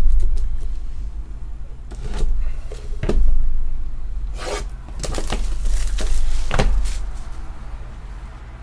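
Trading-card hobby box being handled and opened close to the microphone: a low rumble of handling, with several sudden rustles, scrapes and knocks of cardboard and wrapper.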